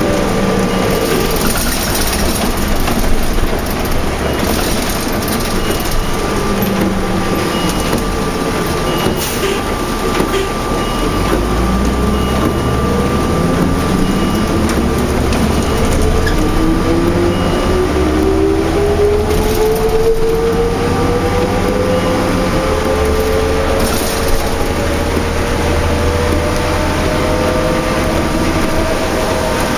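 Cabin sound of a 2004 New Flyer D40LF transit bus with a Cummins ISL diesel and ZF automatic transmission. The drivetrain pitch falls as the bus slows early on, then rises steadily for several seconds from about a third of the way in as it pulls away again. A steady high whine runs through the middle.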